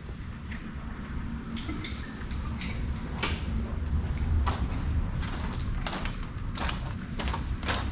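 Irregular footsteps and knocks, about one or two a second, of someone walking about and handling things, over a steady low rumble.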